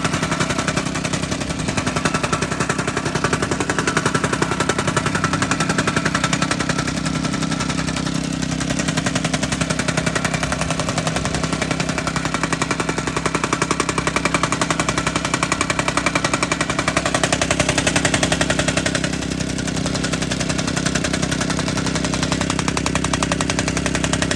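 Mikasa MTR-40H tamping rammer running, its Honda GX100 single-cylinder four-stroke engine driving the foot in a fast, even run of pounding strokes. It dips slightly in level about two-thirds of the way through, then carries on.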